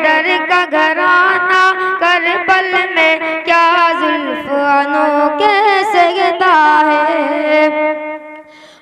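A boy singing a manqabat (Urdu devotional praise of Imam Husain) solo into a microphone, drawing out long held notes that bend and waver in pitch; the line tails off and fades near the end.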